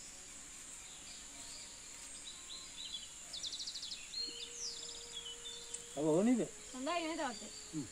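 Outdoor ambience: a steady high insect drone, with birds chirping and trilling in the middle. Near the end a person's voice makes a brief wavering sound.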